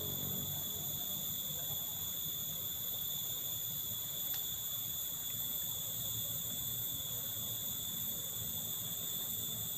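Steady high-pitched chirring of insects over a low, even background rumble, with a single faint click about four seconds in.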